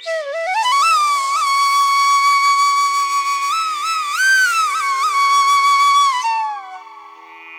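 Background music: a solo flute melody glides up into a long held note, bends through a few ornaments midway, then falls away and fades near the end, over a faint steady drone.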